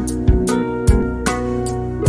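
Instrumental background music with plucked guitar-like notes over a steady beat.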